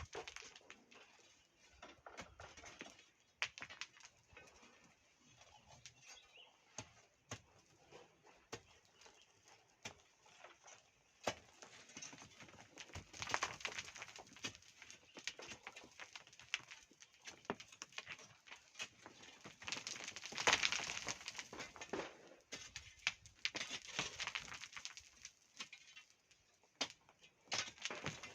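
Irregular knocks and scraping of hand tools digging into volcanic sand and stone, with louder scraping bursts a few times.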